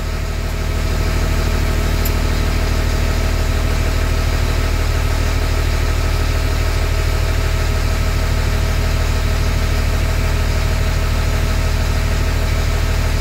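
LMTV military truck's diesel engine idling steadily, heard from inside the cab.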